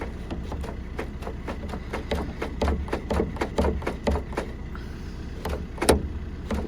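Van boot lock mechanism being worked by hand: a quick run of clicks and knocks, about two or three a second, with a louder click near the end. The latch has just been cleaned with contact cleaner and is being tested for sticking.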